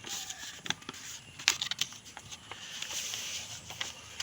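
Origami paper being folded and creased by hand: scattered light crinkles and taps, the sharpest about a second and a half in, with a soft rustle of paper sliding around three seconds in.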